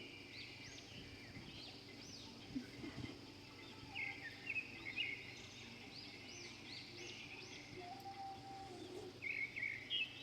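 Small birds chirping over a steady outdoor hiss: many short, high chirps in quick succession, with a few louder trills about four seconds in and near the end.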